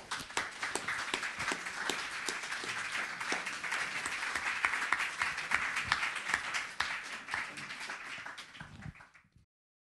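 Audience applauding, many hands clapping at once, swelling to its loudest about halfway and thinning out, then cut off abruptly near the end.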